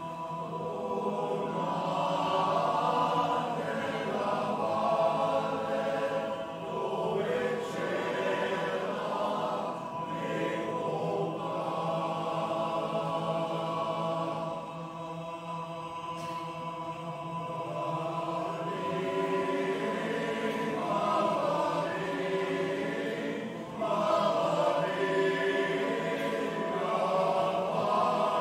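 Men's choir singing in several-part harmony, holding long chords that change every few seconds, growing louder near the end.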